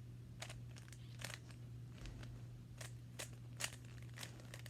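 Rubik's cube being turned by hand: a series of short, irregular plastic clicks as its layers are twisted.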